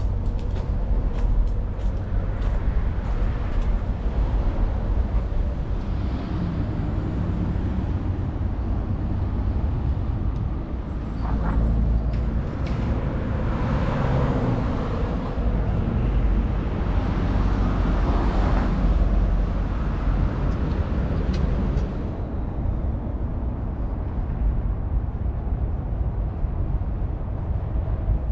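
Road traffic going by: a continuous rumble of passing vehicles that grows louder twice in the middle, then eases off after about twenty seconds.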